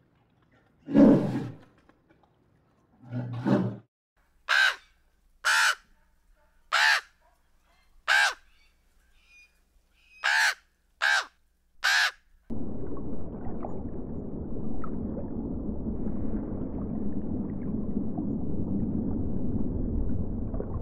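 A polar bear's low calls, twice in the first few seconds; then a raven cawing seven times, short and harsh; then, from about halfway on, a steady underwater rush of water.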